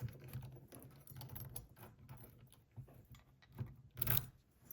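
A key and an ASSA 600 lock being handled: light, irregular metallic clicks and rattles, with a couple of sharper clicks near the end.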